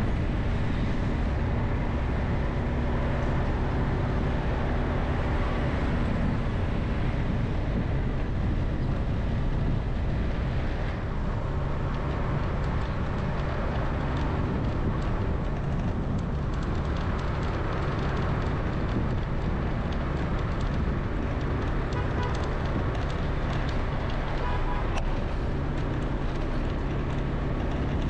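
Steady road noise from a vehicle driving through city traffic, with a low engine hum underneath.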